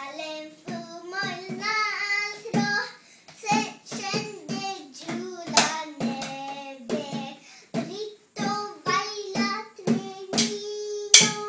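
A young girl singing in gliding, wavering notes while tapping drumsticks on the rubber pads of an electronic drum kit, with sharp stick hits now and then, the loudest near the end.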